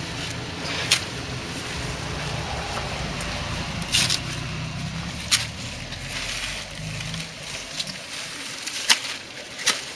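Banana leaves crackling and scraping as they are stuffed by hand into a flat motorcycle tyre, with a handful of sharp snaps. An engine idles underneath and stops about seven seconds in.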